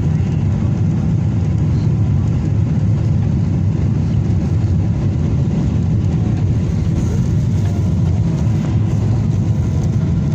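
Steady, loud low rumble inside the passenger cabin of a Boeing 777 on landing, from its engines, airflow and wheels.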